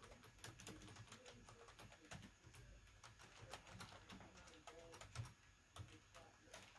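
Faint computer keyboard typing: quick, irregular keystroke clicks.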